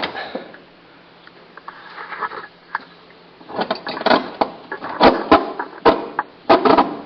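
Old choke cable being handled and worked through the dash, sliding and rattling. After a quiet few seconds it breaks into a quick, irregular run of sharp knocks and clunks.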